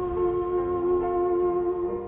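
Background music of several long, steady held notes, getting a little quieter near the end.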